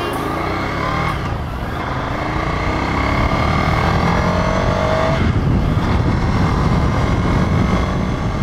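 Ducati Scrambler Cafe Racer's air-cooled 803 cc L-twin running under way. It rises in pitch as the bike accelerates, then drops about five seconds in at a gear change and carries on steadily.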